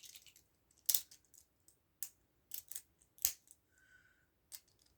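Beyblade tops and launcher being handled between battles: about six short, separate plastic clicks and taps, with no spinning top running in a stadium.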